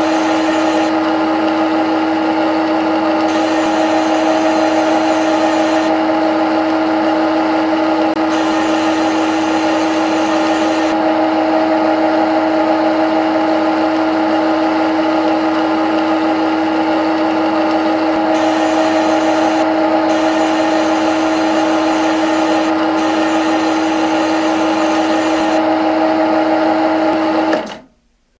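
Simulated CNC lathe spindle running at a steady speed, a loud hum with a strong steady tone, while a higher hiss comes and goes every few seconds. Near the end the sound cuts off suddenly as the program reaches an M01 optional stop and the spindle stops.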